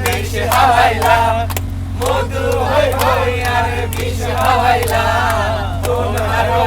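A group of voices singing and chanting together loudly, over a steady low hum.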